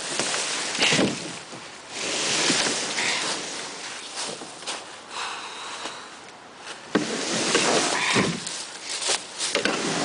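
A canoe hull being dragged over dry fallen leaves and ground, rustling and scraping in uneven surges as it is hauled, with a sharp knock about seven seconds in.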